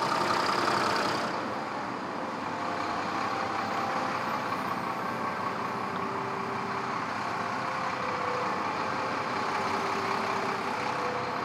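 A steady vehicle engine sound, louder for about the first second.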